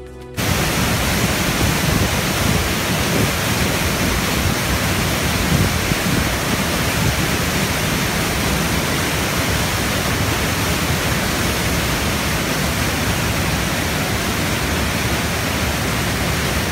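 Steady, loud rushing of river rapids. It starts abruptly about half a second in, as a piece of music ends.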